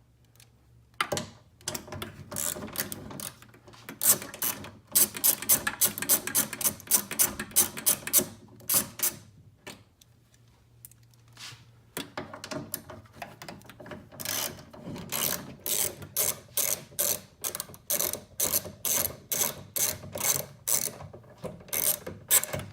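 Hand ratchet with a 10mm socket clicking in quick runs as it undoes the side-mirror mounting nuts. The clicking stops for about two seconds near the middle, then starts again.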